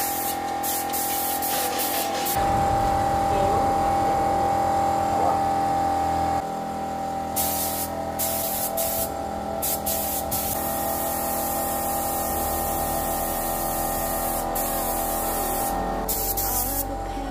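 Compressed-air paint spray gun hissing in repeated bursts with short breaks as paint is sprayed, over background music.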